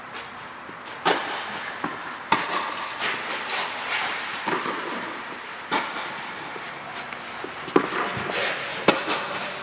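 Tennis rally: a ball struck back and forth by rackets and bouncing on the court, a string of sharp pops every second or two that echo in the large air-dome hall.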